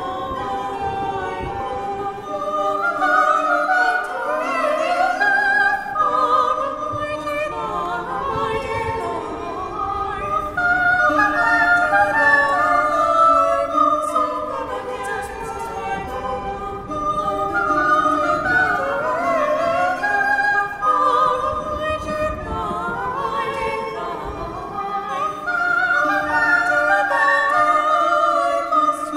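Renaissance canzonet performed by a female treble voice with recorders and lutes, several melodic lines weaving together.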